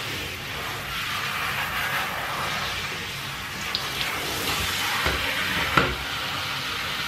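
Handheld bathtub shower head spraying water while a Shih Tzu is rinsed: a steady hiss of running water, with a short knock near the end.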